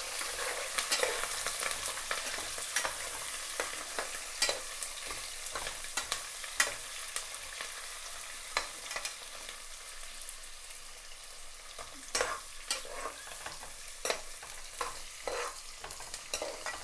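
Chopped onions and green chillies sizzling in hot oil in a pan, with a spatula clicking and scraping against the pan now and then as they are stirred.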